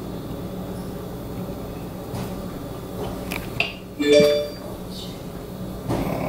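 Soft food-handling sounds over a steady low hum. About four seconds in there is one sharp, briefly ringing clink against the glass jar of a countertop blender as banana pieces are put in.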